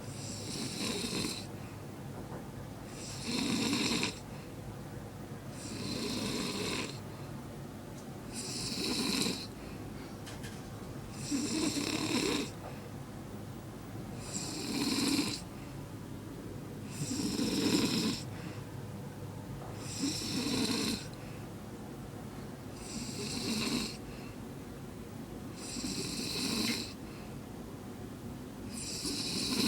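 Snoring in a slow, regular rhythm, about one snore every three seconds, each a rasping noisy breath with quieter breathing between.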